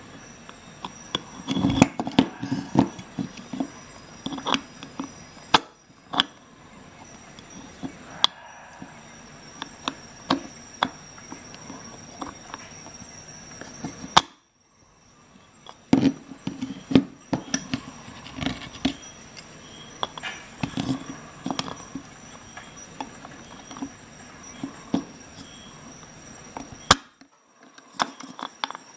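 Steel pliers gripping and twisting a screw head set in a wooden board: irregular clicks, knocks and scrapes of the metal jaws on the screw and wood, broken by a few abrupt cuts to silence.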